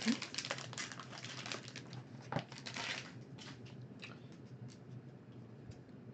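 Silver foil wrapper of a 2015 Panini Playbook trading-card pack crinkling in the hands for about three seconds, then fainter scattered ticks and rustles as the cards are handled on the table.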